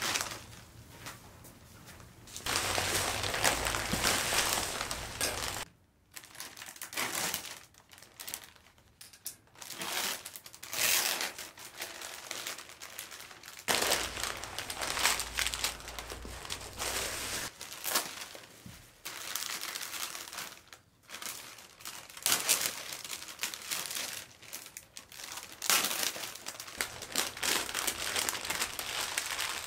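Bubble wrap and clear cellophane plastic crinkling and rustling as they are handled and pulled off flower bouquets, in irregular louder and softer bursts.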